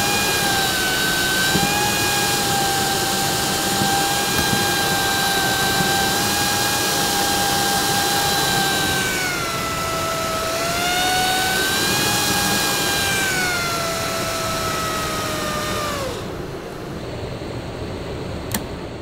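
BTMETER BT-100 vane anemometer's impeller spinning in the air blast from a ceiling vent, a steady whine over the rush of air from the Coleman basement air conditioner's blower running on low. The whine dips in pitch about nine seconds in, climbs back, then falls away and stops about sixteen seconds in, and a single click follows near the end.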